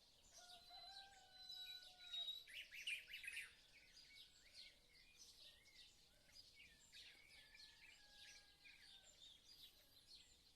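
Small birds chirping and twittering in a faint dense chorus of short, high notes, busiest in the first few seconds and thinning out after.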